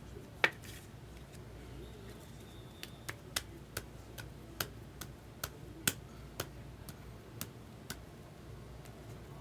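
Baseball trading cards being flipped through one at a time, a sharp click as each card is snapped off the stack, about two a second and a little uneven.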